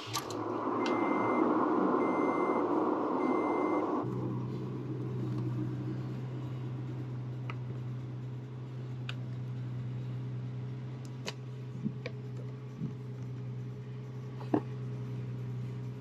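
Toyota Tacoma engine cranking on the starter while the dash warning chime beeps three times, then catching about four seconds in and idling steadily. A few light clicks come from hands working the dashboard switches.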